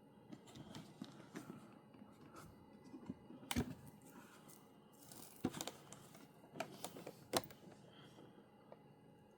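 An action figure's plastic packaging being handled, with irregular crinkling and rustling broken by several sharp clicks and knocks, three of them standing out.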